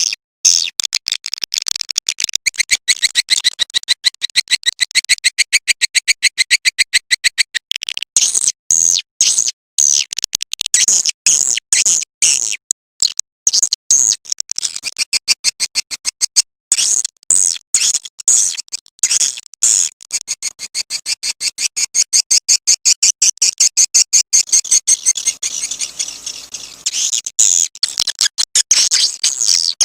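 Swiftlet lure-call recording ('suara panggil walet'): fast trains of high chirps, many a second, repeating in runs of a few seconds with short breaks, played to draw edible-nest swiftlets to a bird house.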